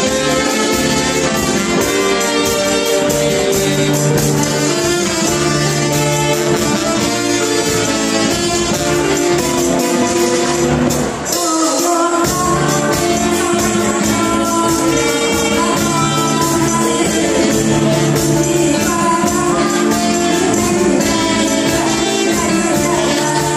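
A woman singing into a microphone over a band with drums and a steady ticking high percussion beat. The accompaniment drops out briefly about halfway through.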